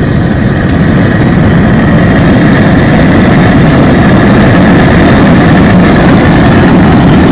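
Outdoor propane burner under a crawfish boil pot burning at high flame: a loud, steady rush of gas and flame, getting louder over about the first second as the gas is turned up, then holding even.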